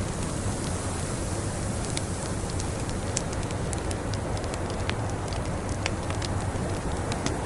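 Wood fire crackling in a fireplace, with scattered sharp pops, over a steady rushing noise of snowstorm wind.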